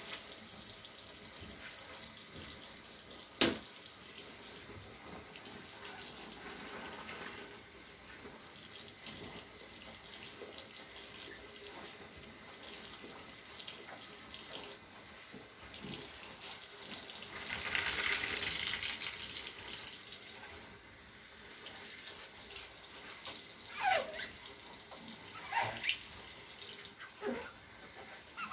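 Water running from a tap into a sink, a steady hiss that swells louder for about two seconds past the middle. A sharp click comes about three and a half seconds in, and a few short falling squeaks near the end.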